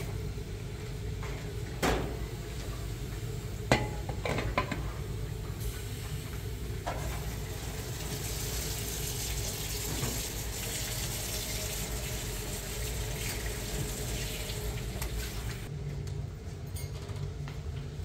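A few clinks of dishes, then a kitchen tap running into a plastic basin in a steel sink for about ten seconds before it is shut off shortly before the end.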